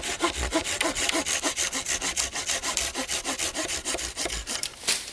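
Hand pruning saw cutting through a branch with rapid, even back-and-forth strokes; the branch rests across the knee so its weight opens the cut and the blade runs free without binding. The sawing stops near the end.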